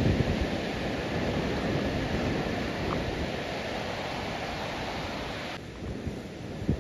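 Snow-fed mountain stream rushing over rocks: a steady, even white-water noise. About five and a half seconds in it drops to a quieter, duller noise.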